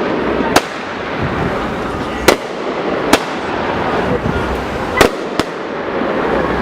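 Fireworks going off: five sharp bangs at uneven intervals over a continuous din.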